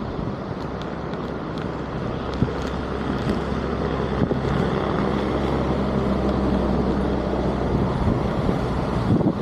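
Floodwater rushing through a cleared culvert drain, a loud steady rush with wind buffeting the microphone. A low steady hum sits under it.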